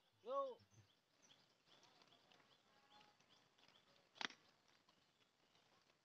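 Faint birds chirping in short, repeated high notes, with a short rising-and-falling call just after the start and a sharp click about four seconds in.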